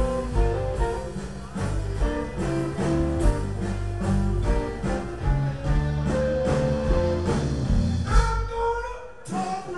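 Live blues band playing through a stage PA: electric guitar over a full band with a steady beat. Near the end the low end drops away, leaving the guitar line more exposed.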